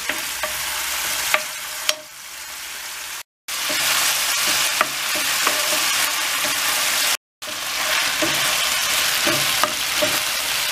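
Diced beef sizzling as it sears in very hot oil in a cast-iron pan, stirred with a wooden spoon that scrapes and taps the pan now and then. The sizzle drops out twice for a moment.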